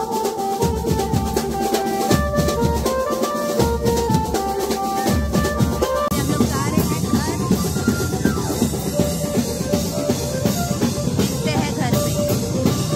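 Music with a steady drum beat under a melody of held notes.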